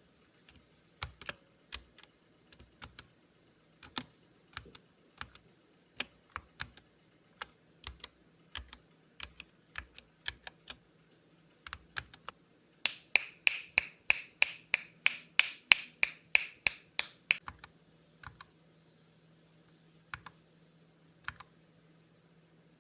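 Skyloong GK61 60% mechanical keyboard being typed on, with separate keystrokes at an easy pace. Partway through comes a louder, even run of about twenty quick keystrokes over four seconds, then a few more keystrokes near the end.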